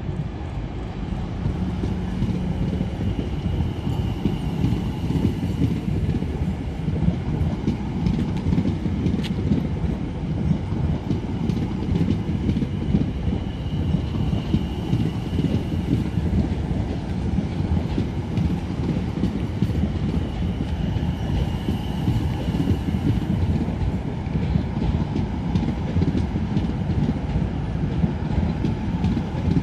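Class 701 Aventra electric multiple unit rolling slowly past along a platform: a steady rumble of wheels on rail with light clicking, and a faint high squeal that comes and goes several times.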